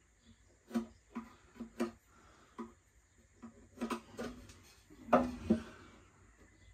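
Scattered light taps and knocks of a pencil marking a wooden shelf and a thin wooden upright being handled against it, the loudest knocks about five seconds in.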